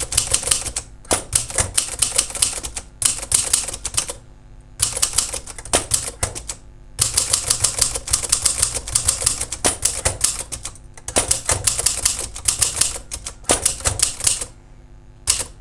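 Royal 202 manual portable typewriter being typed on: runs of quick keystrokes, the typebars striking the platen, in bursts broken by short pauses. The carriage and escapement, freed after being seized, now advance normally under the keys.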